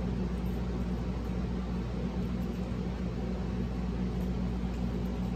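Steady low hum with an even hiss underneath: background room noise, like a fan or air conditioner running.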